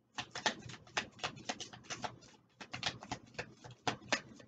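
A deck of oracle cards being shuffled by hand: a quick, irregular run of papery flicks and slaps, several a second, with a short pause about halfway through.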